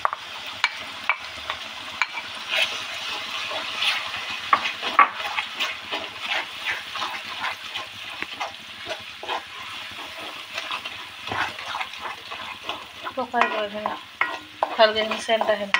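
Onion paste and spice masala frying in oil in a metal pan, with a steady sizzle and the spatula repeatedly scraping and clicking against the pan as it is stirred. This is the bhuna stage, the masala being fried down.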